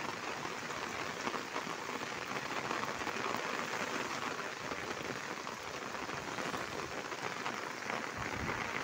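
Steady heavy rain falling, a dense, even hiss that holds without a break.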